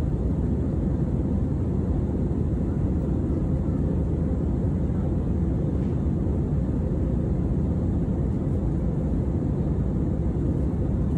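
Steady cabin noise of an airliner in the climb after takeoff, heard from a window seat over the wing: the jet engines and the rush of air over the fuselage blend into a dense, even low rumble with no changes.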